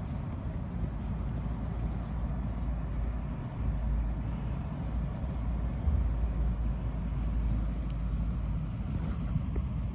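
Low, uneven rumble of wind noise on the microphone.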